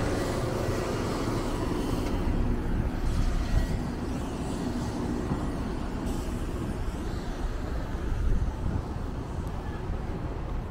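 Street traffic: a hybrid-electric city bus pulling away close by, with its drive humming in the first few seconds, then cars passing on the street.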